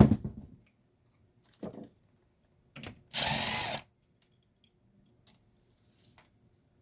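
A cordless drill-driver runs in one short burst of under a second, about three seconds in, backing out a screw as a part is taken off. A few handling knocks come before it.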